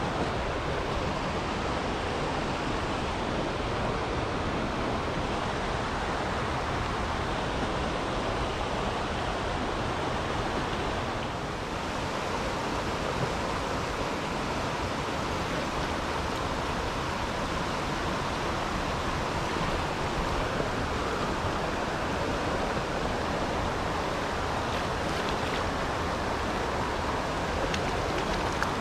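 Steady rush of a shallow, rocky river flowing over riffles.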